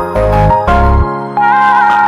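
Background music: a gentle melody with bell-like mallet tones over a low bass.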